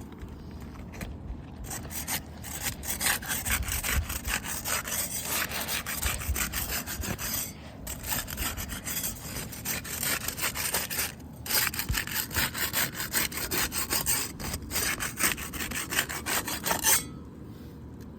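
Asphalt roof shingles being worked loose for removal: a tool scraping and rasping under the shingle tabs in quick repeated strokes, with two short pauses. It stops abruptly near the end.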